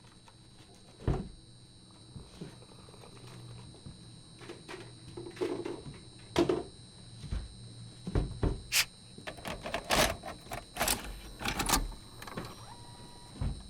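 Scattered clicks, knocks and thuds of objects being handled, fitting a VHS cassette being found and loaded into a player, busiest in the second half. A short faint tone sounds near the end.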